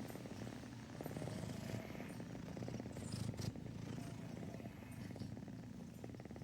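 Domestic cat purring steadily, with a short burst of noise about three seconds in.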